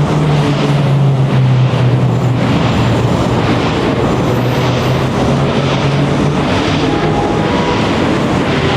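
Busy road traffic, with a large engine's low hum standing out over the noise of passing vehicles and fading away about five seconds in.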